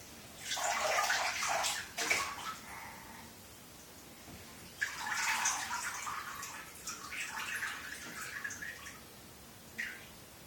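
Bath water splashing and sloshing under a toddler's hands in a bathtub, in two spells: one starting about half a second in and lasting about two seconds, a longer one starting near the five-second mark.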